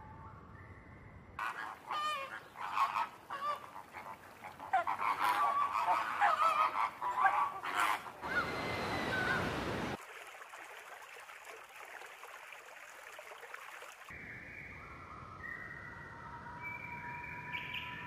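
Geese honking amid other waterfowl calls, loud and busy for several seconds, followed by an even rushing hiss like flowing water. Steady held tones come in briefly at the start and again in the last few seconds.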